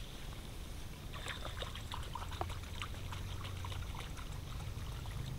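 Shallow running water in a rice-field drainage channel trickling and splashing, with a quick run of small splashes starting about a second in as a hand and scoop net work through it.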